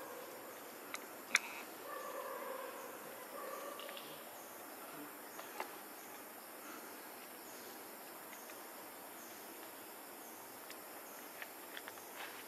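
Insects chirping in a steady, repeating pulse. A buzzing insect comes and goes in the first four seconds, and there is one sharp click a little over a second in.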